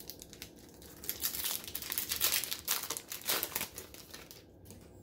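Foil wrapper of a 2020 Donruss baseball card hobby pack crinkling as it is torn open by hand, crackling from about a second in to near the end.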